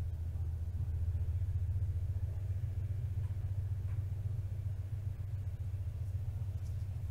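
Steady low hum with nothing else distinct over it.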